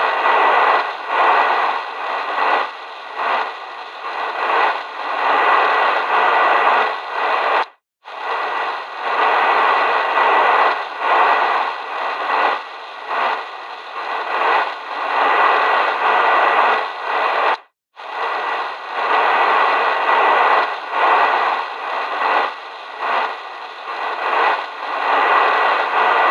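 Loud static noise as a signal-loss sound effect: a harsh hiss that surges and fades, with a thin steady whine through it. It cuts out for an instant twice and repeats as a loop about every ten seconds.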